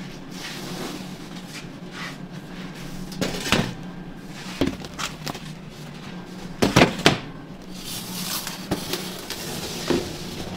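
Clatter at a commercial deck oven as crusty loaves are set on and moved across the metal oven deck: several knocks and scrapes, the loudest pair about seven seconds in, over a steady low hum.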